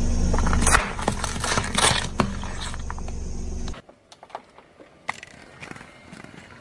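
A car tyre rolling over paper cups, crushing them with a run of crackles and crunches over a low, steady rumble. About four seconds in, it drops to a much quieter tyre rolling slowly on asphalt with a few faint crackles.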